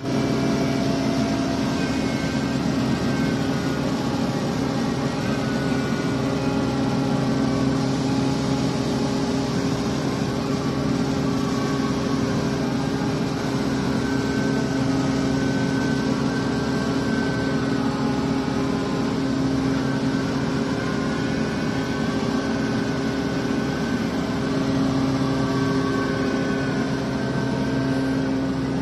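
Excavator's diesel engine and hydraulics running steadily under load as a hydraulic earth auger on its arm drills into the soil: a constant low hum with faint wavering higher tones over it.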